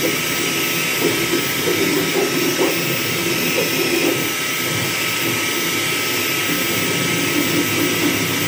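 Flsun T1 Pro delta 3D printer running at full printing speed: its cooling fans give a loud, steady hiss with a constant high whine, under a shifting whir from the stepper motors as the print head darts about.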